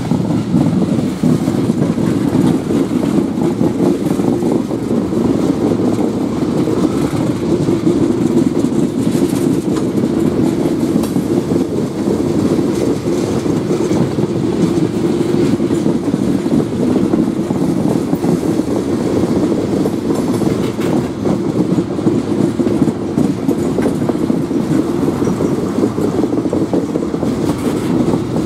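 Freight train tank cars rolling slowly past at close range: a steady rumble of steel wheels on the rails.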